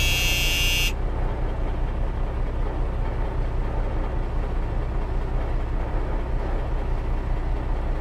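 Steady low rumble of a heavy vehicle running. A high buzzing tone over it cuts off about a second in.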